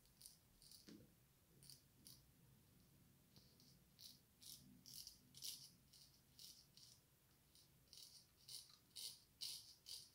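Antoine Touzet frameback straight razor with a Swedish steel blade scraping through lathered stubble in short, quick strokes. The strokes are faint and hissy, sparse at first and coming closer together and louder from about four seconds in.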